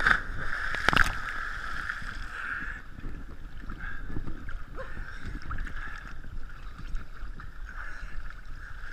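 Lake water lapping and sloshing against a camera held at the water surface, with one sharp splash about a second in as a person jumps into the water beside it.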